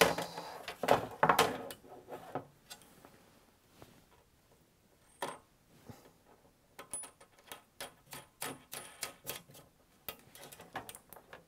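Irregular light clicks and taps of small parts and wire being handled and fitted on a battery-case lid panel, busiest in the first couple of seconds and again near the end.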